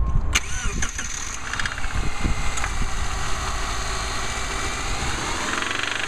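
A 2005 Subaru Outback's 2.5-litre flat-four engine cranks and catches about a third of a second in, then runs with a rhythmic knocking that the owner says is a rod knock, a blown engine.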